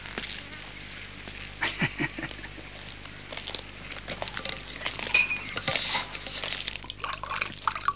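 Small birds chirping in short runs of three or four quick high notes, several times, with a few sharp knocks; the loudest knock comes about five seconds in.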